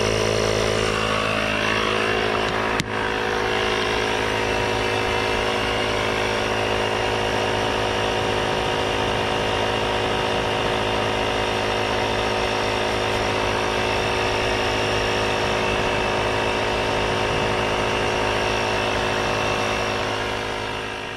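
Portable electric tyre inflator running steadily as it pumps up an underinflated car tyre that reads 30 psi, to bring it toward 36. There is a single click about three seconds in.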